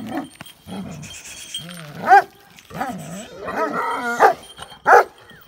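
Kangal–Malaklı cross dogs barking and whining in a run of short calls. The loudest barks come about two seconds in and near the end, with a wavering whine between them.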